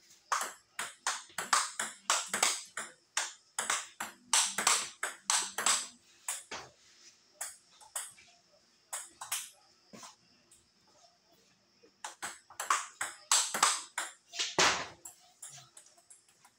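Table tennis rally: the celluloid/plastic ball ticking off rubber paddles and bouncing on the table, about three or four sharp clicks a second. There are two spells of quick play with a few scattered hits between, and a heavier knock near the end. A faint steady high whine sits underneath.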